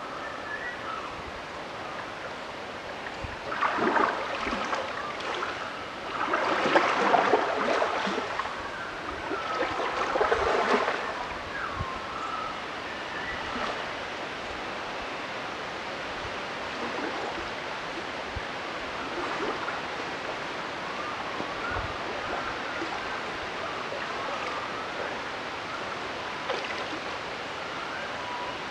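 A steady rushing noise with three louder surges in the first half, overlaid by faint, curling whistle-like glides that come and go.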